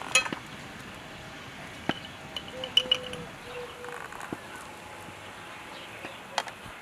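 A metal teaspoon clinking against a glass jar of salt and tapping on a wooden table and cutting board while salt is spooned onto raw fish: a sharp ringing clink right at the start, single taps about two seconds in, a quick pair near three seconds and another near the end.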